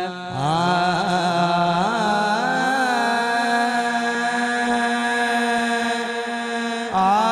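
A man singing a Punjabi devotional song into a microphone: a long wordless phrase that winds up and down in pitch, then settles on a long held note, with a new phrase starting near the end.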